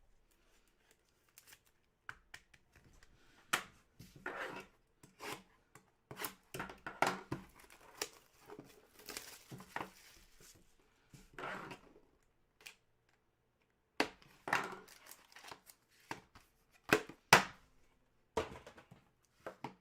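Hands handling trading cards and their plastic sleeves and packaging: irregular rustling and crinkling with sharp clicks and taps.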